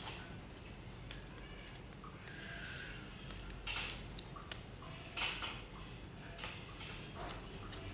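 Small hard parts being handled by hand: scattered light clicks, taps and short scrapes as a cylindrical lithium battery cell and small plastic pieces are turned over and fitted, with a cluster of sharper clicks around the middle.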